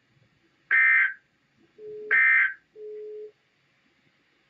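NOAA Weather Radio SAME data tones: two short, raspy warbling bursts of digital code, about a second and a half apart, most likely the end-of-message bursts that close the weekly test broadcast. Between and after them come two quieter, steady low hums.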